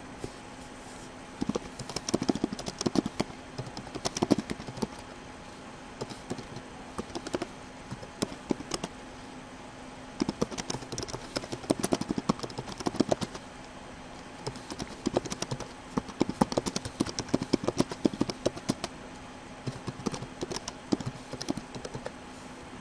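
Typing on a computer keyboard: quick bursts of keystrokes with short pauses between them, over a faint steady hum.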